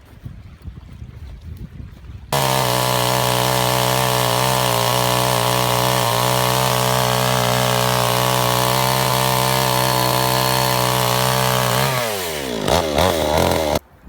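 Chainsaw starting abruptly and running steadily at high revs for about ten seconds. Near the end the throttle is let off and the engine note falls and wavers before stopping.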